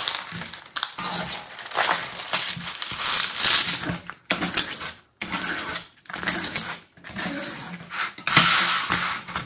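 A diamond painting canvas and its clear plastic cover film rustling and crinkling as hands press and smooth it flat. The sound comes in uneven bursts with a few brief pauses.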